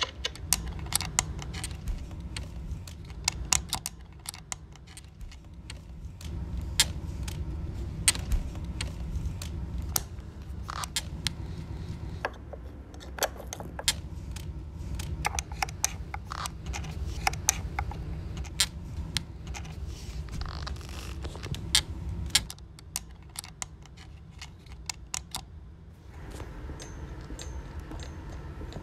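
Many small, irregular clicks and light rattles, like small hard objects being handled, over a low steady rumble that drops away about 22 seconds in.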